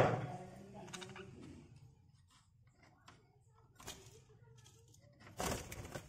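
Budgerigars in an aviary: a burst of wing flapping fading out at the start and another short flurry of wing flaps near the end, with faint twittering and a small click in between.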